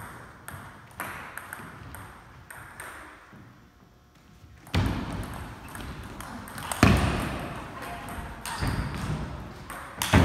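Table tennis rally: the ball clicking off paddles and bouncing on the tables in quick succession, with a few much louder sharp knocks near the middle and end, the loudest about seven seconds in.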